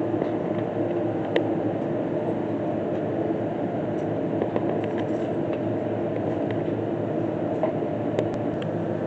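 Steady mechanical drone of dairy barn machinery running, with a few faint clicks.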